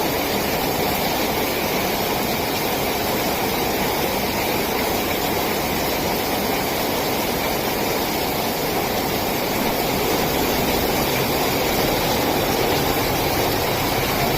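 Heavy rain falling in a steady, unbroken rush.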